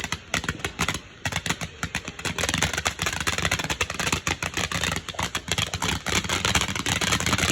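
Three Amigos firework fountain spraying, with a dense, rapid crackle that briefly dips about a second in.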